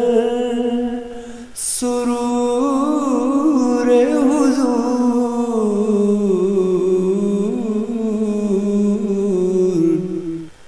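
A male voice singing a naat without instruments, drawing one syllable out into a long, ornamented melodic phrase. About a second and a half in there is a short break with a quick breath, then the line wavers up and down before gliding slowly lower and fading near the end.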